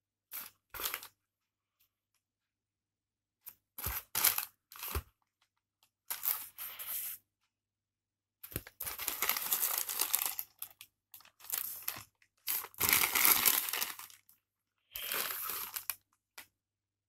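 Grey plastic courier mailer bag crinkling and rustling as it is handled, in about seven separate bursts of a second or two each, loudest about 13 seconds in.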